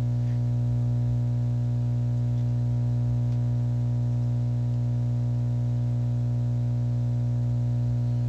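A steady low hum with a stack of fainter overtones above it, unchanging in pitch and level.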